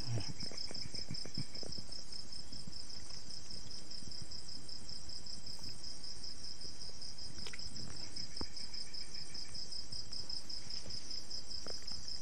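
Night insects trilling: a steady, high, evenly pulsing chirr throughout. A second, lower-pitched insect chirps twice for about a second each, and there are a few faint taps.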